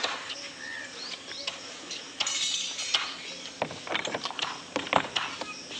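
Metal pots and dishes clinking and clattering as they are handled for washing, with a run of sharp clinks in the second half. A few bird chirps sound in the first couple of seconds.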